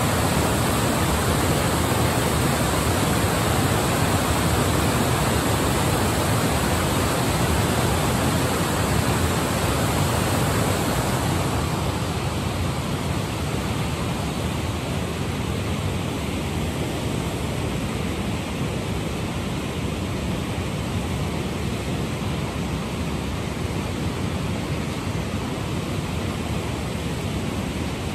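Water pouring over a Thames river weir and churning in the white water below, a steady roar of rushing water. It eases slightly and loses some of its hiss about halfway through.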